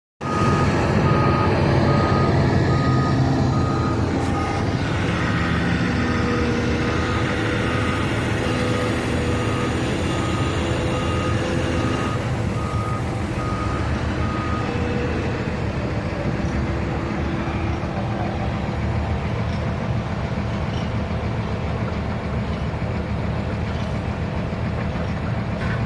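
Loader's diesel engine running, with its reversing alarm beeping at an even pace for about the first fifteen seconds while the machine backs up; after that the engine runs on alone.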